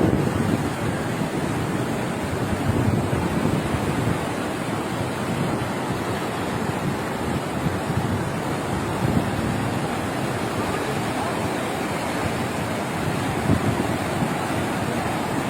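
Fast-flowing floodwater rushing, a steady loud noise, with wind buffeting the microphone.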